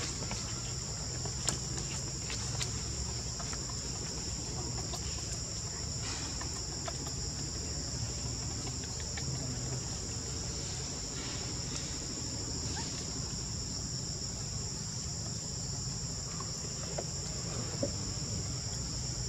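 Steady insect chorus, a continuous high buzz that does not let up, over a low background rumble, with a few faint clicks and calls scattered through it.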